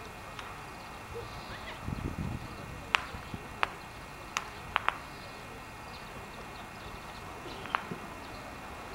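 Outdoor ambience with a steady faint background hum, a brief low rumble about two seconds in, and six sharp clicks: five between three and five seconds in and one near eight seconds.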